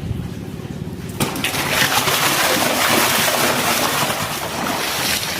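Water splashing and sloshing. It starts suddenly about a second in and carries on loud and steady.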